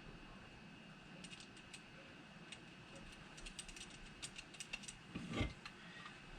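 Faint scattered clicks and light taps of a speaker and its plastic adapter ring being handled and fitted together, with one louder knock near the end.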